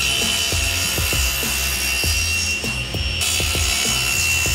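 Table saw running with a high whine as it cuts a spline slot across the mitered corner of a wooden picture frame held in a spline jig. Background music with a steady beat plays underneath.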